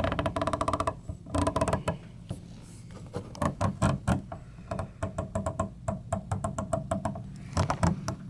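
Snap-on SHLF80A half-inch-drive flex-head ratchet clicking rapidly in several short runs as it is worked back and forth with a large socket fitted. The fine-tooth pawl makes a quick, even, ringing click.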